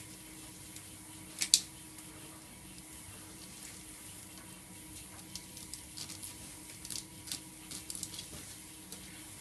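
Gloved hands handling a rubber fuel hose, fitting and clamps: a sharp double click about a second and a half in, then scattered small clicks and rustles over a steady background hum.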